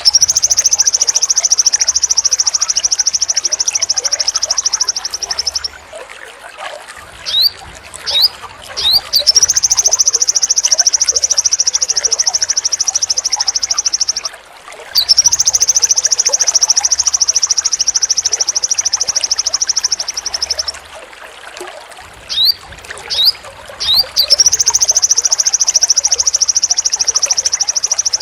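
Sogon bird singing: long, high, rapid rattling trills of about five seconds each, four in all, broken by short, quick rising chirps.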